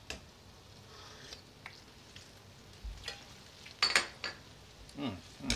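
Mapo tofu sauce simmering in a wok with a faint sizzle. A few sharp clinks of a ladle and small dishes come through it, the loudest about four seconds in as a small dish is set down on the counter.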